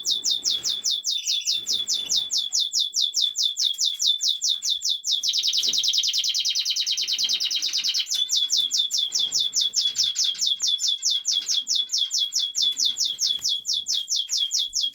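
Raza canary cockbird singing loudly, a rapid run of repeated high notes at about eight a second. The middle section is a faster, denser trill. The song stops suddenly near the end.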